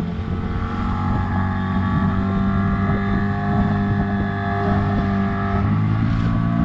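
Small outboard motor on a fishing boat running steadily under way. Its pitch eases down slightly near the end.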